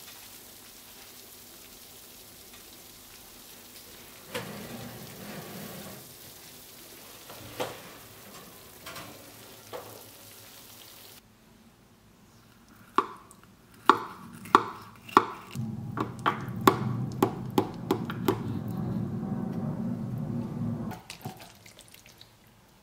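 A knife cutting into a baked lasagna in a glass dish. First comes a quick run of sharp crackling clicks as the blade breaks through the browned, gratinated cheese crust. Then a steady scraping as it saws through the layers, ending about two seconds before the end, and before all this a faint steady hiss.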